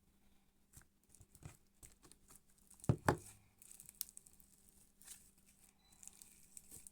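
Sticky slime full of little beads being pulled out of its container by hand, making irregular crackling, tearing and popping sounds, with two louder knocks about three seconds in.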